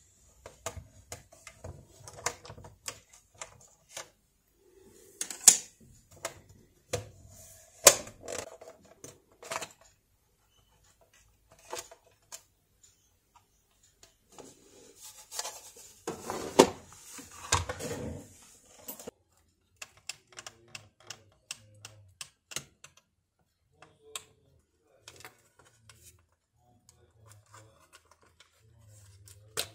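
Irregular plastic clicks, taps and knocks from a Panasonic KX-T4311 answering machine's case and circuit board being handled and taken apart by hand. A few sharper knocks stand out, about five and eight seconds in and again around the middle, with a busier stretch of rattling there.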